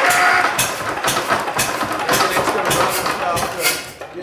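Gardner 3LW three-cylinder marine diesel being cranked on its electric starter: a whine that rises and levels off as the starter spins up, then a rough, pulsing churn of about four beats a second, cutting off near the end.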